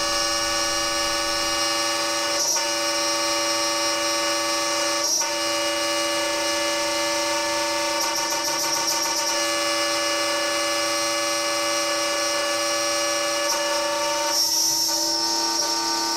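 CNC milling machine cutting 6061 aluminium with an end mill under flood coolant, its brushless DC spindle motor and cutter giving a steady whine of several tones at once. The mix of tones shifts slightly about 14 seconds in.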